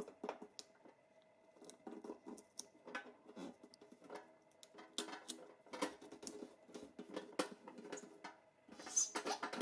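Irregular clicks, taps and light metallic knocks from small metal toy-truck parts being handled and fitted, with a busier cluster near the end.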